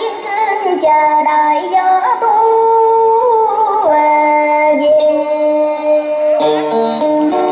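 A woman singing a cải lương (Vietnamese reformed opera) excerpt into a microphone over instrumental accompaniment. Her voice moves between long held notes.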